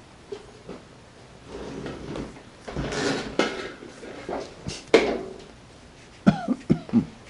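Irregular knocks, scrapes and rustling as a shop-vacuum hose is handled and moved, with the vacuum itself switched off. A quick run of three or four sharp knocks comes near the end.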